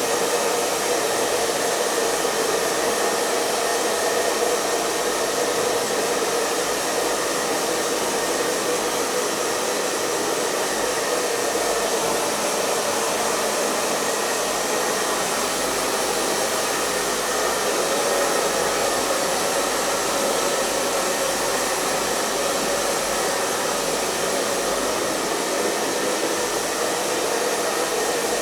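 Electric hair dryer running steadily: a continuous blowing rush with a faint motor hum, unchanging throughout.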